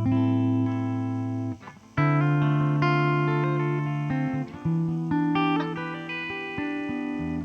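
Grote ES-335-style semi-hollow electric guitar playing held chords and ringing notes, with a brief break about one and a half seconds in.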